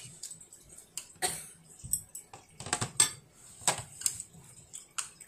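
Chopsticks tapping and clicking against a plate as a child picks up rice: a string of short, irregular taps, about eight in all.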